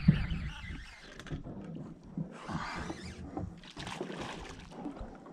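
Kayak paddle strokes, the blade splashing and pulling through the water three times, with a few light knocks in between.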